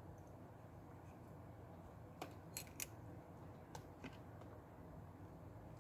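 Near silence with a few faint, sharp little clicks, in a cluster about two seconds in and again near four seconds: small parts of an iPhone 6 being handled and fitted back during its screen replacement.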